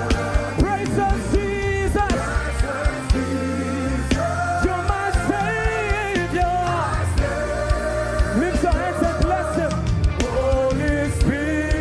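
Christian worship song: sung melody with long held notes over a band with a regular drum beat and bass.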